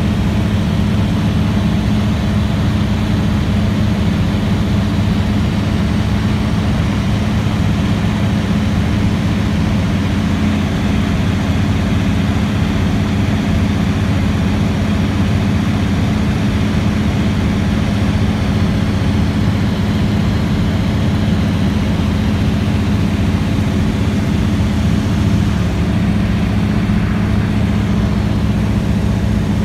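Light seaplane's piston engine and propeller running steadily in cruise flight, heard from inside the cabin as a loud, even low drone.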